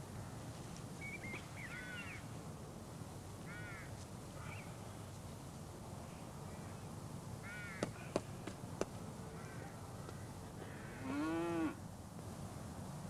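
Crows cawing several times, and a cow lowing once about eleven seconds in, the loudest sound, over a steady low background noise. Three sharp clicks come about eight seconds in.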